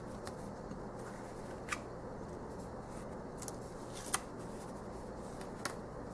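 Thick gilt-edged tarot cards being handled and laid down on a cloth, with a few light, sharp clicks of card against card. The loudest click comes about four seconds in.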